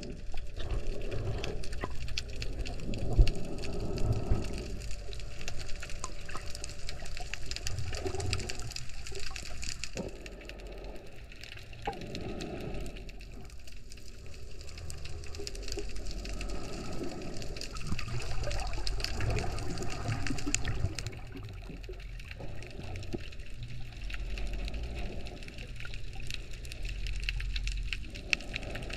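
Muffled underwater water noise heard through a submerged camera: a low rumble that swells and fades every few seconds, with faint crackling throughout.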